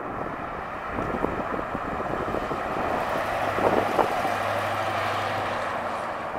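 1972 Buick Gran Sport's V8 running as the car drives toward and past, loudest as it goes by about four seconds in, then fading as it pulls away.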